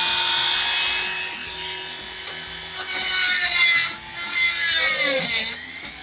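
Small 180-watt Dremel-type rotary tool whining at high speed as its bit grinds into a stainless-steel screw, in harsh bursts about three and four seconds in. The motor's pitch drops near the end as it slows and stops, as the 180-watt tool struggles to drill the stainless screw.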